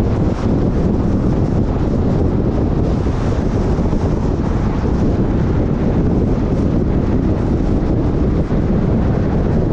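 Steady road and wind noise of a car travelling at freeway speed, a dense low rumble with no let-up.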